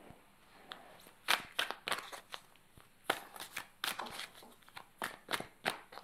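A deck of divination cards being shuffled by hand: an irregular run of short, sharp clicks and slaps of card stock, starting about a second in.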